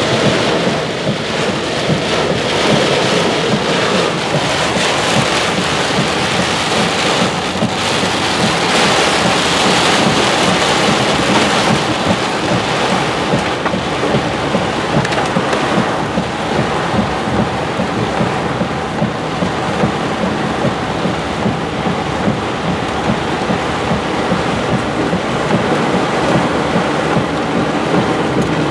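Heavy thunderstorm rain pelting the windshield and roof of a vehicle, heard from inside the cab as a loud, steady, dense patter.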